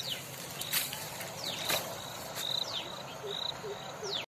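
Insects chirping in a field: short high chirps repeating at uneven intervals, with a few quick falling high calls. A few brief knocks stand out about a second in and near the middle.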